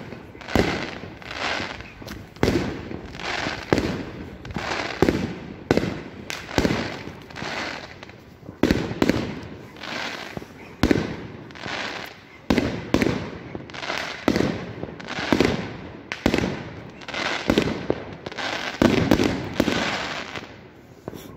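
New Year fireworks display going off in a steady barrage: sharp bangs at about two a second, each followed by an echoing crackle.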